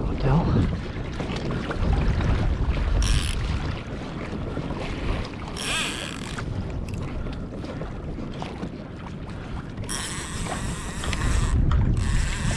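Wind buffeting the microphone and water moving around a kayak, with several short hissing rushes.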